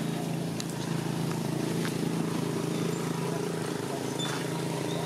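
A motor running steadily nearby: a low, even hum that holds level, with a few faint clicks.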